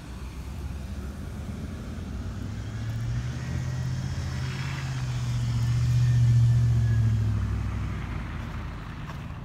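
A motor vehicle passing by: its low engine hum grows louder, peaks about six seconds in, then fades away.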